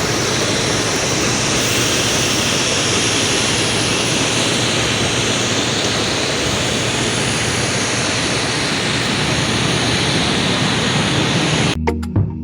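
Jet airliner noise: a steady, even rushing roar that cuts off abruptly near the end.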